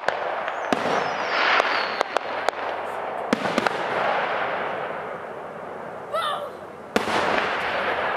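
Aerial fireworks: many sharp reports of shell bursts over steady hissing and crackle. A rising whistle comes about six seconds in, then a loud burst followed by hissing near the end.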